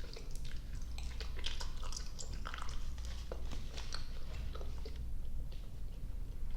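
Close-miked chewing and biting of soft, sticky gummy and marshmallow candy: rapid wet, sticky clicks of the mouth, thick for the first four seconds or so and then sparser, over a low steady hum.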